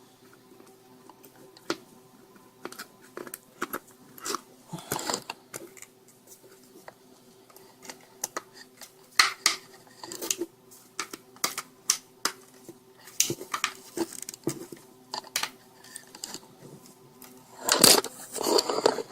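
Irregular plastic clicks, taps and rustles from handling a laptop power adapter's casing while fitting its top cover back on, over a faint steady hum, with a louder scrape near the end.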